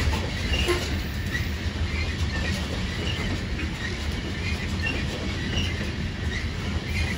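Coal train freight cars rolling past: a steady low rumble of steel wheels on rail, with short high wheel squeaks scattered throughout.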